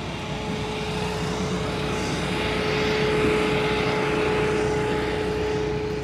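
A steady engine drone with a constant hum, growing louder toward the middle and easing off near the end.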